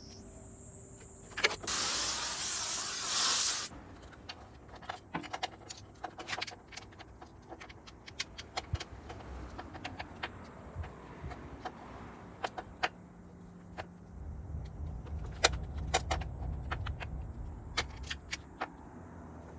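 Workshop handling sounds: a hissing blast lasting about two seconds near the start, then scattered clicks and clinks of metal tools and parts, with a low rumble over the last few seconds.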